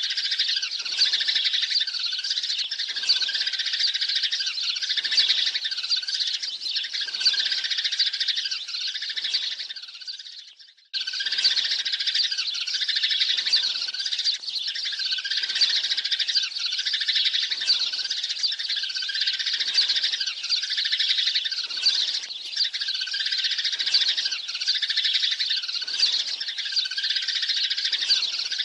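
A flock of sparrows chirping and chattering continuously, the dense calling of a sparrow lure track meant to call a flock in. Around ten seconds in the chatter fades down and breaks off for about a second, then starts again at full strength.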